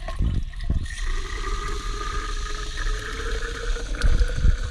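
Water gushing and splashing out around a welded exhaust-pipe flange during a leak test, a sign that the weld still leaks. There are a couple of low knocks just after the start and again about four seconds in.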